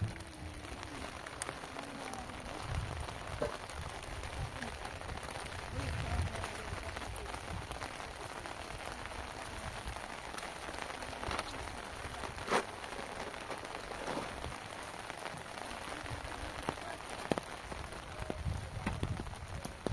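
Steady rain falling on rocky ground and muddy puddles, with scattered sharper drop clicks.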